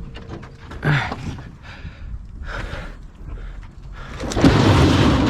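Handling of a heavy piece of metal scrap: a knock about a second in, scattered clunks, then a loud scraping rush near the end as the heavy item is moved.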